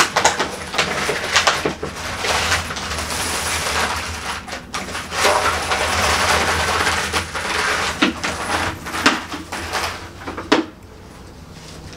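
A large heap of Mexican peso coins clattering and jingling as hands spill them and push them across a table, with many sharp clinks over a continuous sliding jingle. It dies down shortly before the end.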